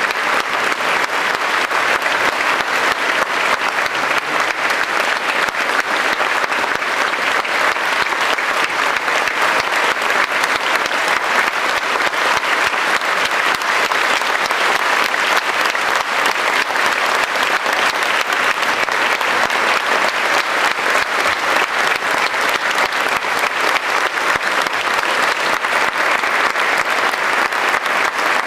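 Large audience applauding, a dense, even clapping that keeps up without a break.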